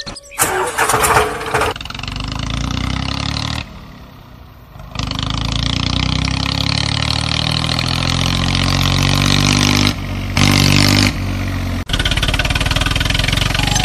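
Tractor engine sound: a short loud burst at the start, then the engine running and revving with its pitch slowly rising. It briefly drops away about four seconds in and runs steadily near the end.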